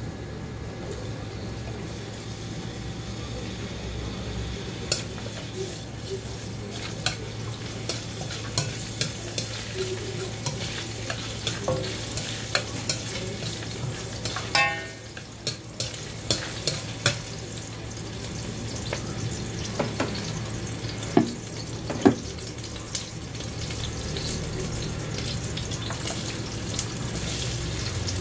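Chopped garlic frying in oil in a stainless steel wok, with a steady sizzle and a metal spatula clicking against the pan as it is stirred, and a brief scrape about halfway through.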